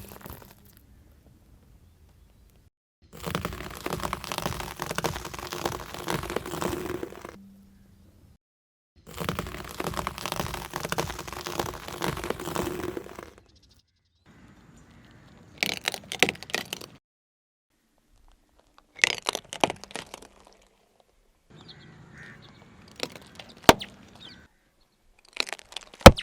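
Objects being crushed under a car tyre: two stretches of several seconds of dense crackling and crunching, then four short bursts of sharp cracks and snaps, the loudest snap right at the end.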